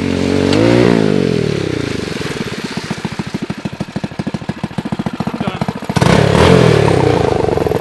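Go-kart's two Honda-clone small engines running under throttle as it drives. The engine note rises about a second in and then falls away, and it picks up loudly again about six seconds in.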